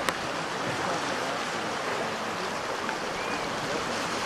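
Creek rapids rushing steadily, with one sharp click just after the start.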